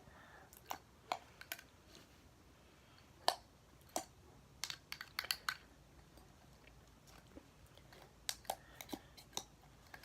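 Slime being handled and pulled off a marker, making irregular small sticky clicks and pops.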